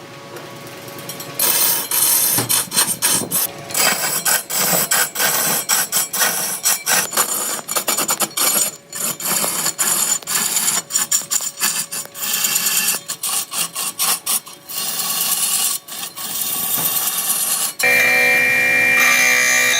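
A tool cutting into wood with a rough, scraping sound, coming in quick irregular strokes with many short breaks. Near the end it changes abruptly to a steady whine with several held pitches.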